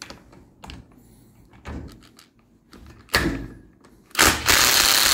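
Impact wrench on its lowest speed setting hammering a nut held by an adjustable wrench: a short burst a little after three seconds, then a longer, louder burst of about a second near the end.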